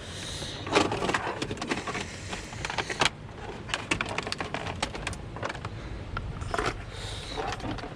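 Hands working among a vehicle's dashboard wiring loom and plastic trim: irregular rustling, with scattered sharp clicks and knocks.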